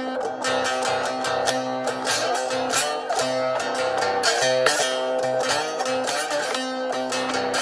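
Saturn three-string cigar box guitar played solo: a run of plucked notes in a steady rhythm, with a low note ringing under the melody.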